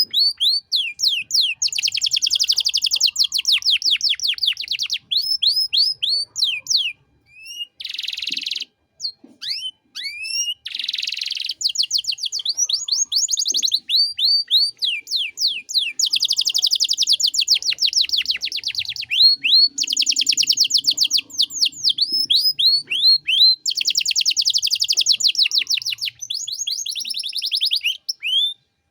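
Domestic canary singing a long, fast song: rapid trills of repeated down-slurred whistled notes, broken up by a few buzzy rolls and short pauses.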